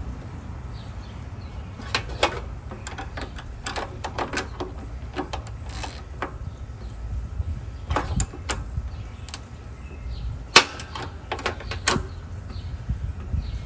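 Scattered metal clicks and taps of a small ratcheting wrench and terminal bolt as the negative cable is fastened to a riding-mower battery, over a low steady rumble.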